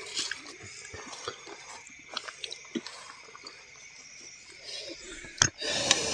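Food being served and eaten by hand: scattered faint clicks and rustles of plates and food, with one sharper click about five seconds in and a louder rustle near the end.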